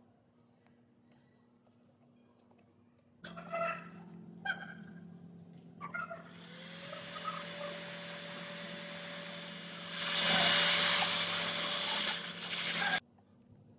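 An electric power tool starts after about three seconds and runs with a steady hum and a rising hiss, with a few short squeaks early on. It gets louder near the end and cuts off suddenly.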